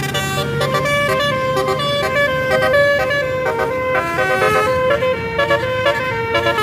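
Multi-tone 'basuri' telolet air horn on a tour bus playing a quick melody, with several horn tones sounding together and the notes changing in rapid steps.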